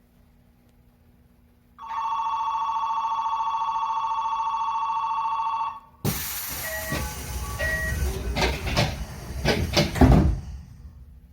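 Door-closing warning tone on a Tokyo Metro 8000 series train sounds steadily for about four seconds. Then the air-operated doors close with a sudden rush of air and a series of knocks and bangs, the loudest about ten seconds in.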